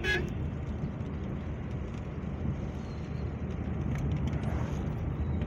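Steady low rumble of a car driving on a wet road, engine and tyre noise heard from inside the cabin in heavy rain.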